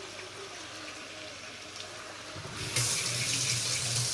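Kitchen tap running briefly: a steady rush of water that starts about two and a half seconds in.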